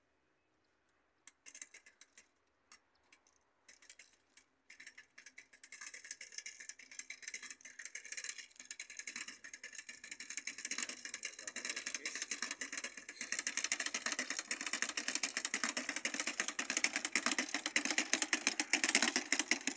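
Hand-pushed rotary maize seed-and-fertilizer planter rolling over tilled soil, its turning drum rattling and clicking. At first there are scattered clicks. Then it becomes a rapid, continuous rattle that grows louder as the planter comes closer.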